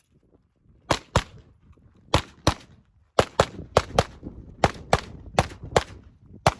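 Rapid pistol fire: about a dozen sharp shots, mostly in quick pairs, beginning about a second in.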